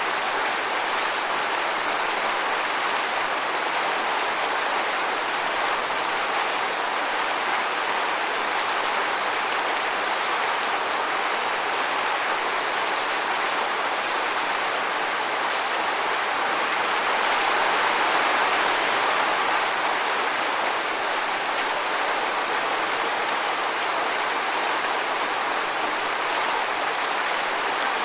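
Waterfall pouring steadily, a constant rush of falling water that swells a little about two thirds of the way in.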